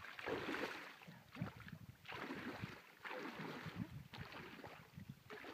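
Wading footsteps in shallow lake water and reeds, a splash about once a second.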